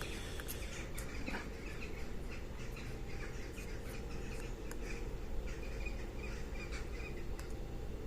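Occasional light clicks of a pick working the discs inside a disc detainer padlock, with short repeated bird chirps in the background.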